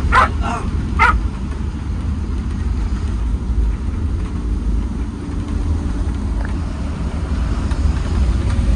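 A dog in the truck cab gives three short barks in the first second, calling out to be played with. The truck's engine and road noise rumble steadily underneath throughout.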